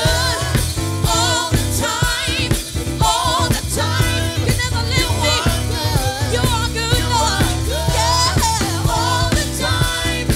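Gospel worship song: a singer's wavering melody over a band with a strong, steady bass.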